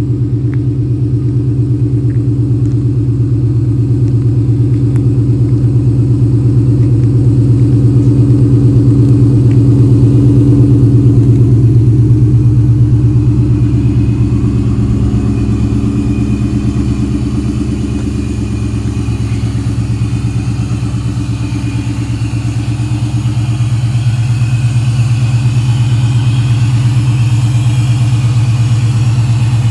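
A 2004 Mustang Cobra's supercharged 4.6-litre V8 running steadily, a little louder around the middle of the stretch.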